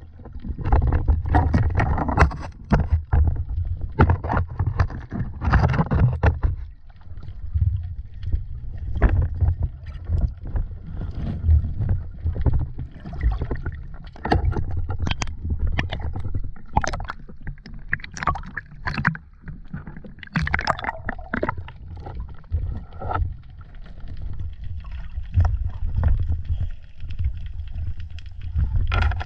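Sea water sloshing and splashing around a camera held underwater and at the surface, muffled and rumbling, with irregular knocks and bubbling as the spearfisherman swims and handles his catch.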